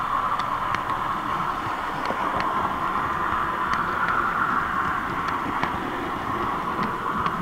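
H0-scale model train running on the track: a steady whine with light, irregular clicks.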